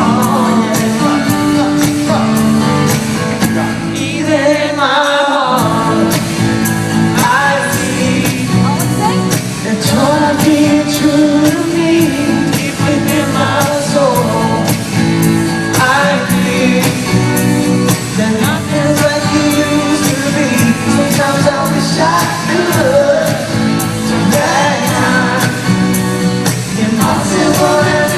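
Male pop vocal group singing a pop song live over backing music with a steady beat, heard in a large hall.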